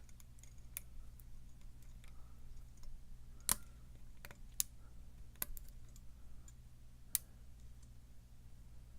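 Light, irregular metallic clicks of a lock pick working the pins of a pin-tumbler challenge lock held under a tension wrench, the sharpest click about three and a half seconds in, over a steady low hum.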